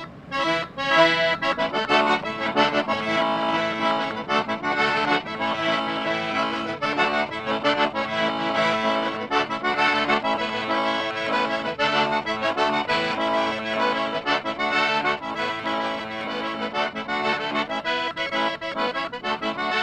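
Cajun button accordion played solo, a tune carried over steady rhythmic chords.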